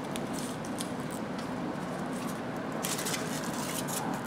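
A mouthful of burrito being chewed, with its aluminium-foil wrapper crinkling in the hands: short crackles throughout and a denser burst of crinkling about three seconds in.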